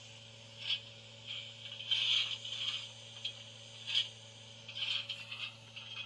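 Sound decoder speaker in a Dapol OO gauge Terrier model steam locomotive standing still, playing short, irregular hissing and scraping steam-engine sounds, about six of them, over a faint steady hum.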